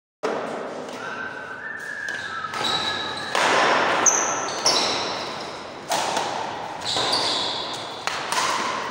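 Doubles badminton play in a large echoing hall: a run of sudden hits and footfalls on the court, each fading into the hall's reverberation, with short high squeaking tones among them.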